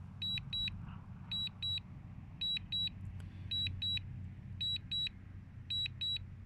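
DJI Mini 2 remote controller's return-to-home alert: high-pitched double beeps about once a second, six times, over a faint steady low rumble. The beeping signals that the drone is flying back home on automatic return-to-home.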